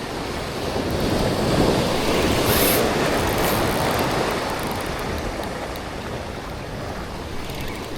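Ocean waves surging and washing against the inlet's rocks, with wind on the microphone; the wash swells about a second in and eases toward the end.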